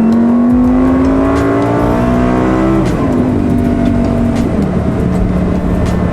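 Lamborghini Gallardo's 5-litre V10 accelerating, its pitch rising steadily, then dropping sharply about three seconds in as it shifts up, and running on steadily at lower revs.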